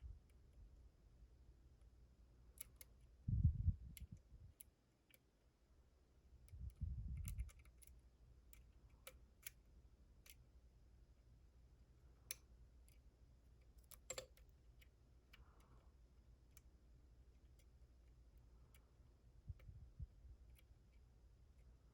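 Lock pick and tension wrench working the pins of a brass challenge lock: sparse, faint metallic clicks and ticks as the pins are lifted and set. Two dull low thumps, about three and seven seconds in, are louder than the clicks.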